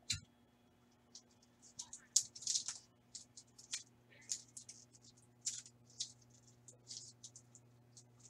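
Duct tape being pulled from the roll and torn, heard as a string of short, irregular, high-pitched rips and rustles.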